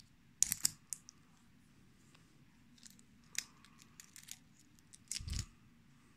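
Light clicks and taps of small hard objects being handled, in three clusters, the last with a soft thump.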